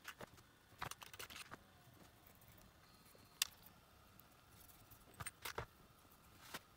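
Faint scattered clicks and light ticking as the small parts and thin wire strands of a Sony WME23RL wired remote are handled by fingers, with one sharper click about three and a half seconds in and a few quick clicks a little after five seconds.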